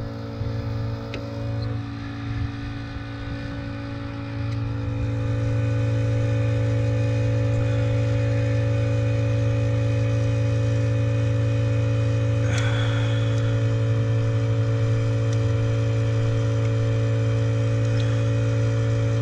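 A steady motor drone with a strong low hum, growing louder about five seconds in and then holding level, with a few faint clicks over it.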